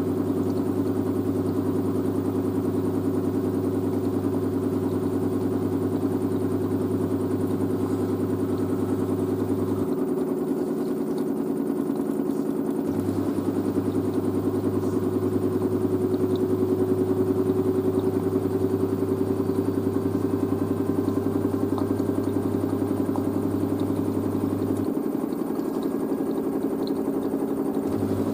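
LG DirectDrive washer-dryer running, its motor and drum giving a steady hum and whine, the pitch rising slightly midway. A deeper hum drops out twice for a few seconds.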